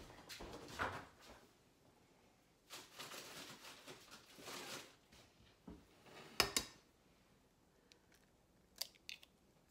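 Quiet kitchen handling noises: a stretch of rustling, then a sharp click about six seconds in and a couple of smaller clicks near the end.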